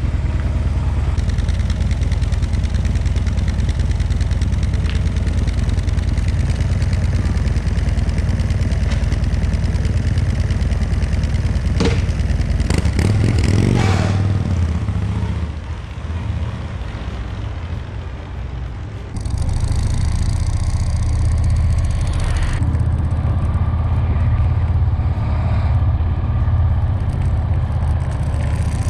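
Harley-Davidson Electra Glide's 1700 cc-class V-twin running with a steady, thumping low exhaust note. About 13 seconds in it revs up as the bike pulls away and fades off; from about 19 seconds on, wind noise joins the engine as the bike rides along the road.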